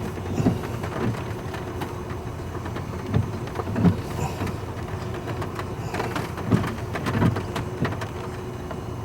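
Rain hitting the vehicle, heard from inside the cab, as many small ticks over a steady running noise, with a few short low bumps.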